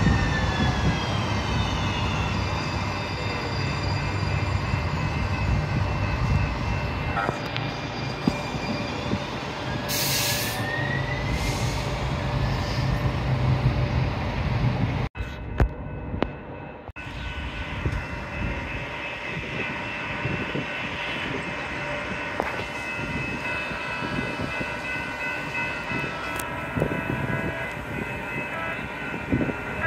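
San Diego Trolley light-rail train running past the platform, with a steady low motor hum and high wheel squeal that fades after several seconds. About halfway there is a brief dropout, then steady high tones and rail noise as another trolley approaches.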